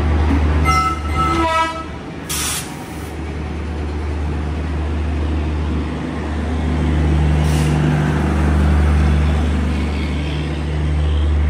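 Express train pulling into a station platform with a steady low rumbling hum. A short descending chime sounds near the start. A loud air-brake hiss follows at about two seconds in, and a shorter hiss comes at about seven and a half seconds.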